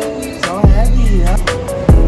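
Background music with a heavy bass and a steady beat, with a hip-hop feel.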